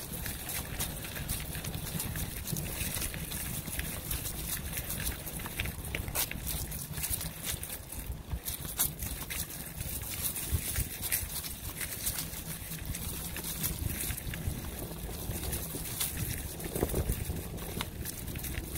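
Bicycle rolling over dry fallen leaves: the tyres crackle through the leaves with many scattered small clicks, over a steady low rumble.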